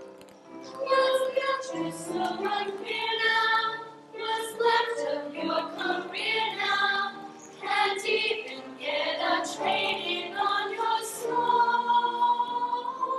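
A group of girls singing a song together on stage.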